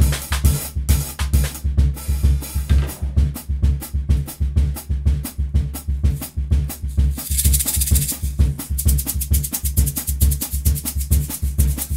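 Drum kit played with sticks, snare strokes over a steady beat with a bass-heavy backing track. About seven seconds in, a handheld shaker comes in with a fast, even shaking rhythm.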